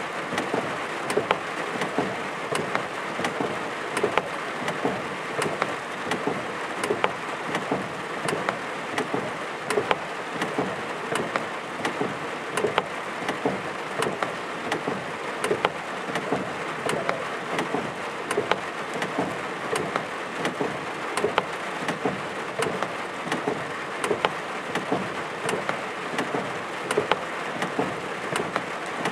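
Steady rain falling on a hard surface during a thunderstorm, with frequent sharp drop taps at irregular intervals.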